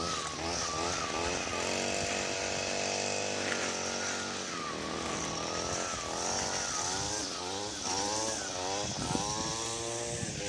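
Gas string trimmer engine running, revving up and down in quick repeated blips as it cuts, with a steadier stretch at one speed about two seconds in.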